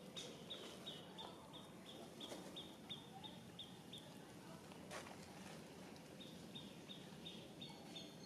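A faint, high, thin chirp repeated about three times a second, with a pause of about two seconds midway before it resumes, over faint outdoor background noise.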